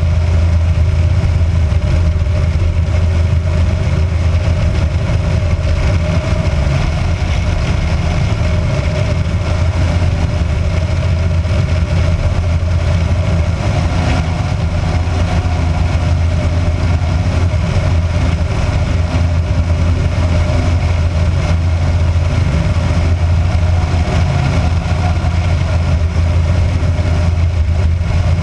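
Kitfox light aircraft's engine and propeller running steadily in flight, a constant low drone with no change in power.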